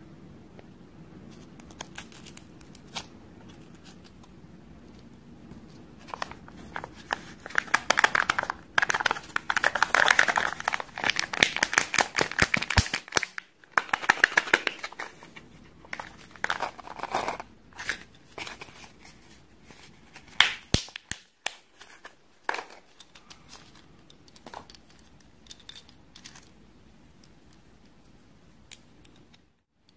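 Crinkling and tearing of a Kinder Joy toy's thin printed plastic wrapper as it is opened by hand, dense and loudest through the middle. It is followed by scattered light clicks of small plastic toy pieces being handled and fitted together.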